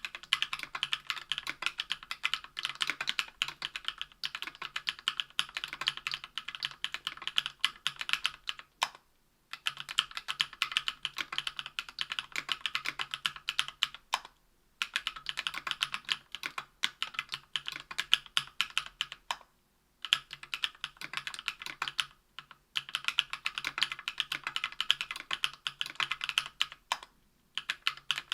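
Typing on a Tofu 60% aluminium-case, aluminium-plate keyboard fitted with lubed JWK CW 65 g linear switches and GMK keycaps: a fast, even run of keystrokes that stops briefly several times.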